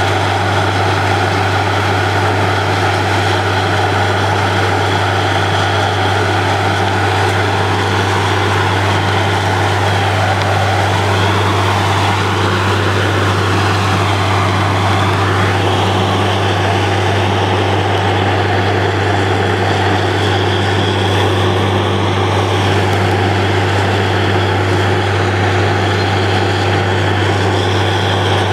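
Truck-mounted borewell drilling rig running steadily while boring a well, a constant low engine drone.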